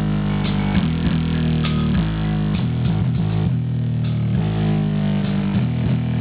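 Music with a heavy bass line and guitar playing loud through a small home micro stereo system.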